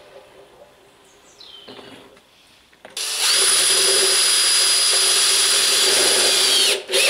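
Cordless drill running at steady speed with a high whine, starting about three seconds in and winding down near the end.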